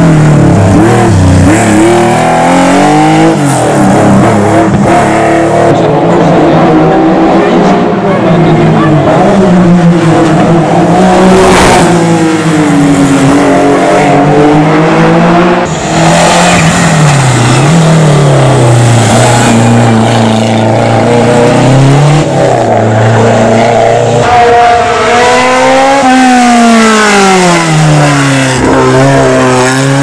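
Race car engines climbing a mountain hill-climb course at full throttle, the pitch rising through each gear and dropping on the shifts and braking into the hairpins. About halfway through, one car's engine gives way to another's.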